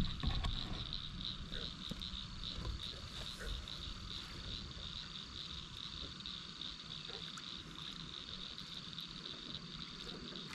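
A chorus of frogs calling steadily: a high, pulsing trill repeating several times a second, over a low rumble.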